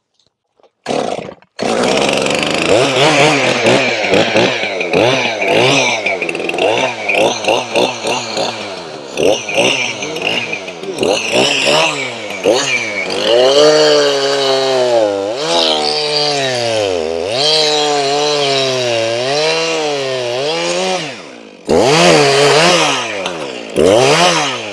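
Chainsaw cutting a log into pieces, coming in about a second and a half in, its engine pitch rising and falling over and over as it revs and bogs in the wood. Near the end it drops back, then gives two short bursts of throttle.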